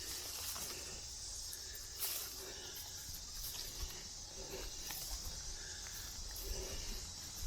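Steady high-pitched chorus of insects in summer woods, with light footsteps and rustling along a dirt trail, a little louder about two seconds in.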